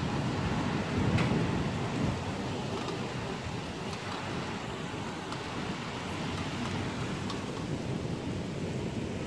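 Thunder rumbling during a night thunderstorm, swelling to its loudest about a second in and then fading, over a steady hiss of rain.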